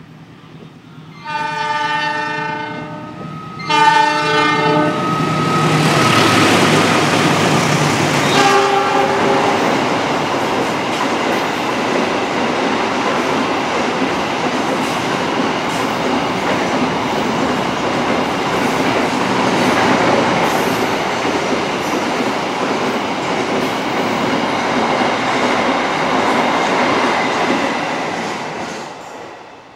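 Diesel locomotive's air horn sounding a chord in two long blasts, then a short third blast about eight seconds in, as a container freight train passes close by. After that the wagons' wheels rumble and clatter steadily over the rails, fading out near the end.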